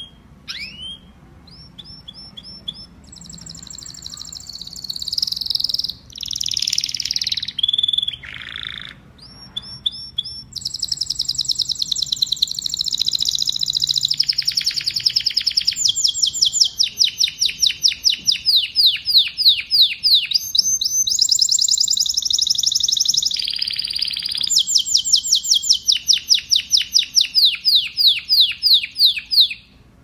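Domestic canary singing a long, continuous song of high-pitched rapid trills and rolling repeated note series, with brief breaks about six and ten seconds in; the song stops just before the end.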